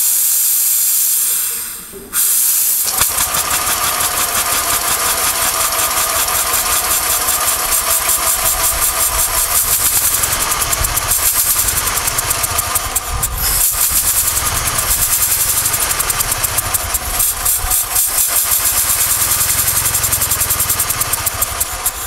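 Homemade steam engine of a steam motorcycle. For about two seconds steam hisses loudly from a jet venting toward the ground while the engine is warmed up. Then the engine starts and runs with a fast, even exhaust beat.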